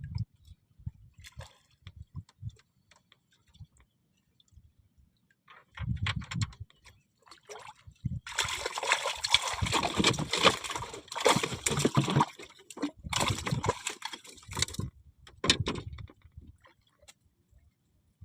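Water splashing and sloshing hard for about six seconds in the middle, with a brief pause, then one shorter splash.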